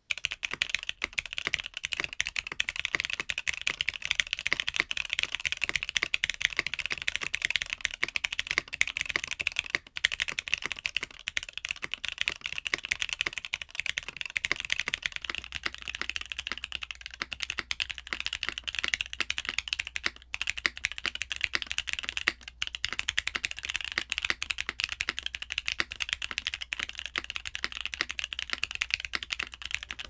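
Continuous fast typing on a Mode Sonnet mechanical keyboard fitted with Gateron Golden Cap V2 switches, lubed with Krytox 205g0: a dense stream of keystroke clacks. About halfway through, the switches are lubed and also filmed with 0.125 mm TX films.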